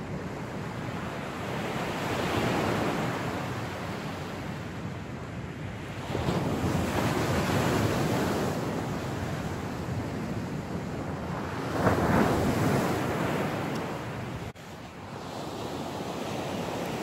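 Sea waves breaking on the beach, swelling up in slow surges about every five seconds, with wind noise on the microphone.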